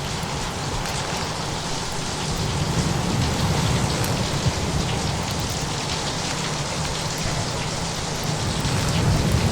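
Steady heavy rain with a low rumble underneath. Thunder begins to build near the end.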